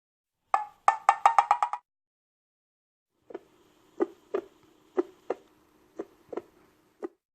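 Knocking sound effect: a rapid run of about eight wood-block-like knocks, then after a pause a slower series of knocks, partly in pairs, over a faint steady low tone.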